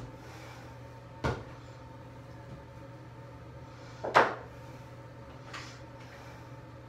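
Sharp knocks from someone cleaning in a bathtub: one about a second in, a louder clunk about four seconds in, and a faint tap after it, over a steady low hum.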